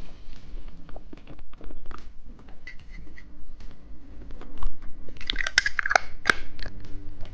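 Close-miked clicks, taps and crinkles from handling a plastic-packaged hamburger-shaped candy, with a dense burst of crinkling and crackling about five seconds in.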